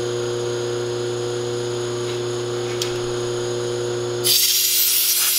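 Bridgeport milling machine running with a steady hum and a few constant whining tones. About four seconds in, a loud burst of compressed-air hiss starts, blowing the metal chips out of the freshly milled groove.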